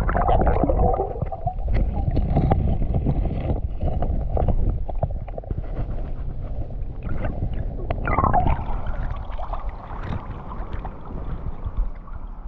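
Muffled sloshing and gurgling of creek water around a camera held underwater, with scattered knocks against it. About eight seconds in, the sound opens up as the camera nears the surface.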